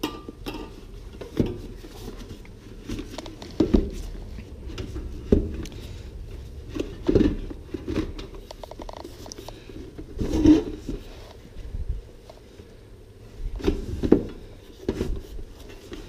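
Irregular knocks, taps and rattles of the diesel heater's internal assembly being handled and fitted into the heater's body, with a louder knock every couple of seconds.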